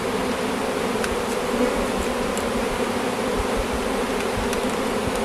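Honeybee swarm buzzing: a steady, dense hum of many bees flying together.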